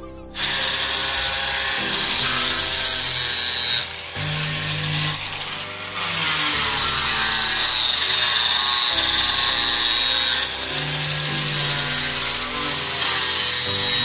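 Angle grinder fitted with a sanding disc, running against wooden wall planks: a steady high motor whine over the rasp of sandpaper on wood. It dips briefly twice, about four and six seconds in.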